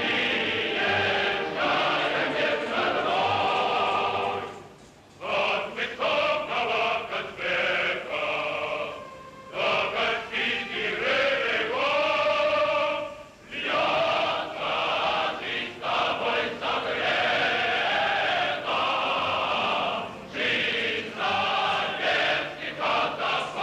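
Choir singing in long phrases broken by short pauses.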